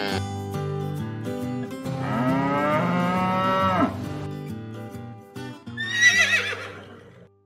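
A cow moo sound effect, one long call, over light background music, followed about six seconds in by a short, wavering horse whinny; the music fades out near the end.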